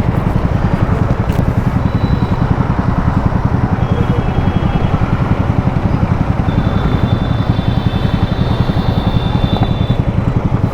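Yamaha MT-15's 155 cc single-cylinder four-stroke engine with an aftermarket Akrapovic exhaust idling at a steady, even putter, with no revving.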